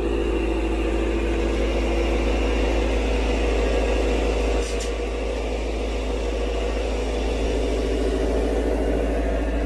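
Spray-foam insulation rig's machinery running with a steady, unchanging low hum and drone while polyurethane foam is sprayed inside the bus.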